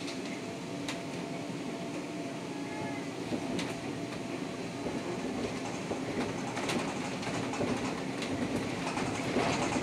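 Inside a moving Škoda 32Tr SOR trolleybus: the steady hum of the electric drive over road and body noise, with several sharp clicks and rattles, getting a little louder near the end.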